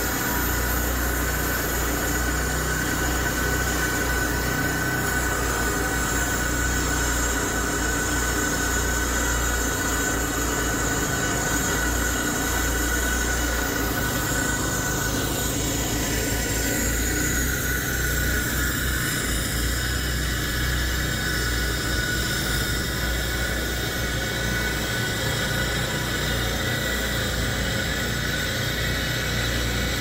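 A motor running steadily and loudly, with a low rumble and a constant whine; about halfway through a higher tone slides down in pitch.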